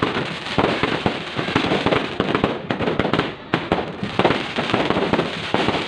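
Fireworks going off in a continuous, rapid barrage of bangs and crackles, with no pause.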